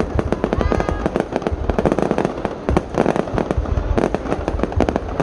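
Aerial fireworks going off in a rapid, unbroken barrage of bangs and crackles, several reports a second, over a low rumble.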